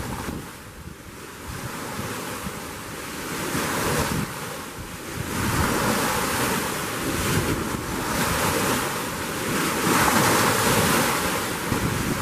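Strong gusty wind buffeting the microphone, swelling and easing every few seconds, over choppy waves splashing against the shoreline.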